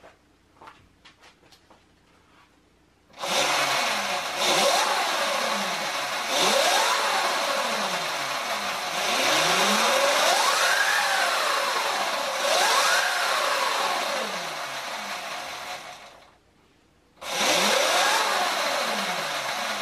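Sur Ron electric dirt bike's motor and chain drive spinning the raised rear wheel, throttled up and down several times: a whine that rises and falls over a loud drivetrain noise. It stops for about a second near the end, then spins up again. The owner hears the drivetrain noise he meant to fix still there, and suspects the chain is not lining up properly.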